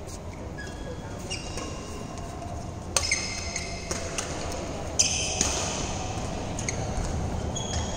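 Badminton rally: rackets strike the shuttlecock with sharp cracks, the two loudest about three and five seconds in, ringing briefly in the large hall. Between the hits, shoes squeak in short high chirps on the court mats.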